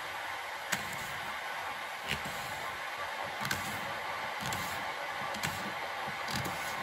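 Steady rushing of water heating to the boil, with a knife cutting through an apple and tapping on a plastic cutting board about once a second.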